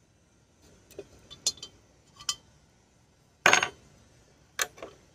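Scattered light knocks and clicks from pots and gardening tools being handled while repotting succulents, with one louder, slightly longer clatter about three and a half seconds in.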